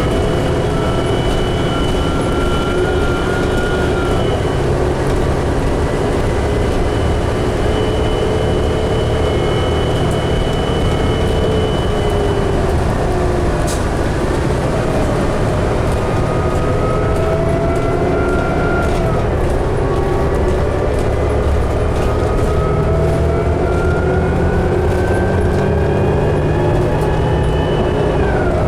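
2011 New Flyer D60LFR articulated diesel bus under way, heard from inside: a steady low rumble with a drivetrain whine that climbs in pitch as the bus speeds up. The whine drops back at each gear change, three times.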